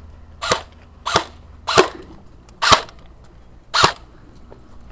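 Airsoft gun firing five single shots, spaced unevenly about a second apart, each a short sharp pop.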